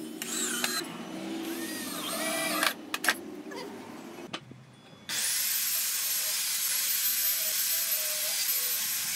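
Cordless drill driving screws into a wooden frame in short runs, the motor speeding up and slowing, with a couple of knocks. About five seconds in, a circular saw starts with a rising whine and runs steadily through a board until it cuts off suddenly near the end.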